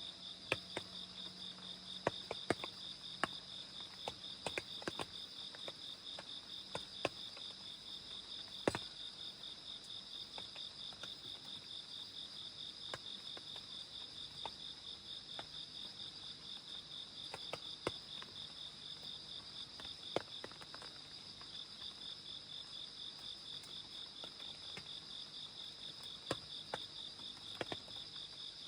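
Crickets trilling in a steady, rapid pulse, with scattered sharp taps of raindrops dripping, the loudest about a third of the way in.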